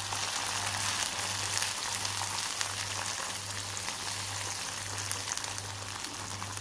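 Boiling sugar caramel sizzling and crackling steadily as a large spoonful of butter melts into it, stirred quickly with a wooden spoon in a stainless steel pot.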